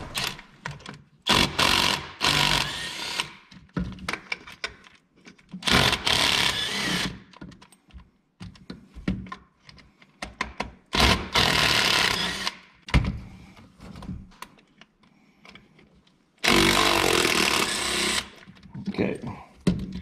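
Cordless power tool spinning out the 8mm valve cover bolts of a 5.3L V8. It runs in four one- to two-second runs, with small clicks of handling between them.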